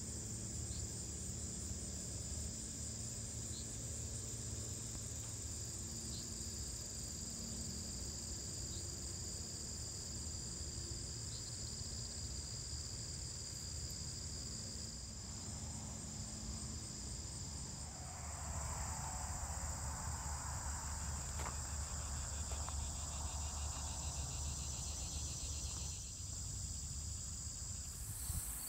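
Steady, high-pitched chorus of insects trilling, with a low steady rumble underneath. In the second half a softer, muffled mid-pitched sound swells for several seconds.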